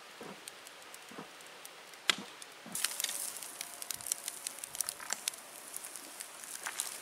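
Wood campfire of split logs crackling and popping in a steel fire ring. The pops are sparse at first, and about three seconds in they turn into a dense, hissing crackle.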